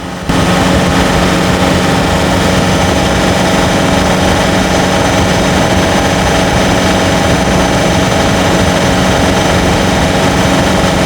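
Four-cylinder turbodiesel engine running steadily under load while climbing, its sound coming in suddenly at a loud level and holding even, with no change in revs.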